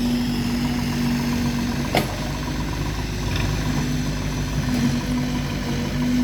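Engine of heavy earth-moving machinery running steadily at low revs, with one sharp knock about two seconds in.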